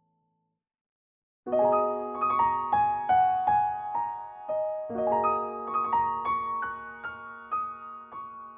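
Near silence, then, about a second and a half in, piano music starts: a melody of struck notes over sustained lower notes.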